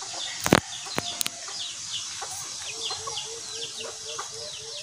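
Chickens: a run of high, falling peeps about three a second, with a hen's short low clucks joining just past halfway at about the same pace. A few sharp knocks about half a second and a second in.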